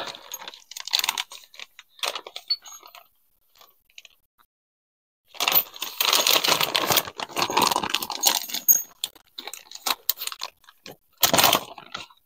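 Steel washers and a bolt clinking and rattling as they are handled at a sawmill's track wheel. A few scattered clinks, a short lull, then about six seconds of dense clattering and rummaging.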